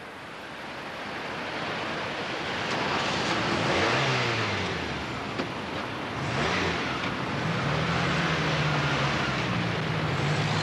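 Cars driving past close by, engine notes dropping and rising in pitch over tyre and road noise. Two passing whooshes come near the middle, and after them a steadier engine hum.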